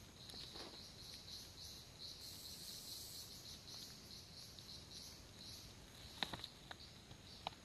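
A night insect chirping steadily, high-pitched, about three chirps a second, with a few sharp clicks near the end.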